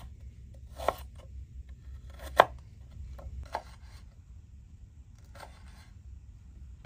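Kitchen knife chopping ginger on a wooden cutting board: a few sharp chops about a second apart, the one about two and a half seconds in the loudest. Lighter, quieter cutting strokes follow at about three and a half and five and a half seconds in.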